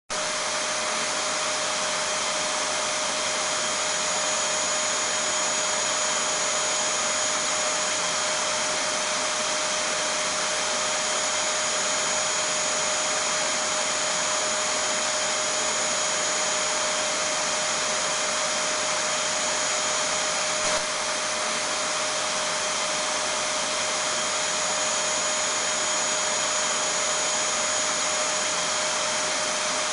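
Vacuum cleaner running steadily: an even rush of air with a constant hum and a high whine that never change.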